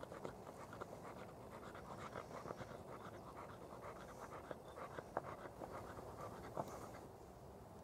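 Freshly cut rim of a brown glass jar being rubbed on abrasive cloth to smooth the sharp edge: a faint, rapid scratchy rasping, with a couple of sharper ticks in the second half.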